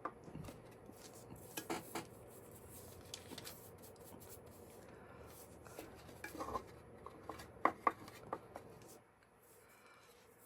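Faint, scattered light taps and rubbing from hands handling a soft silicone rubber squishy while coating it with flocking powder.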